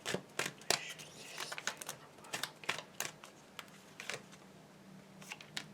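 Tarot cards being handled between readings: a scatter of short, light clicks and snaps of the cards.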